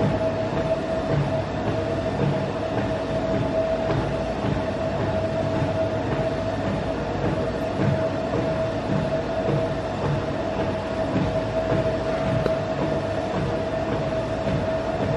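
A steady mechanical drone: a low rumble with a constant mid-pitched whine running through it, unchanging throughout.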